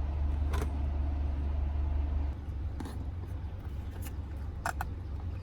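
Steady low rumble of a car, heard inside the cabin, easing slightly about two seconds in, with a few light clicks.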